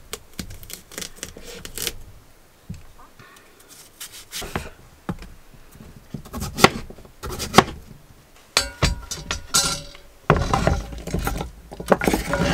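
Chef's knife chopping raw pumpkin on a wooden cutting board: irregular sharp knocks of the blade hitting the board. Near the end, a busier clatter and scrape as the pumpkin cubes are pushed off the board into a Dutch oven.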